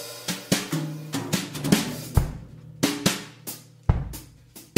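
Background music with a drum-kit beat of kick drum and snare hits over a low bass line.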